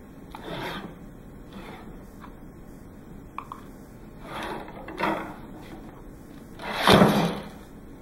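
A 32 lb pile-driver block is hauled up its steel guide rods with a rope, rubbing and scraping as it goes, then dropped about seven seconds in, sliding down the rods and landing on an aluminum can with one loud thud as it crushes the can.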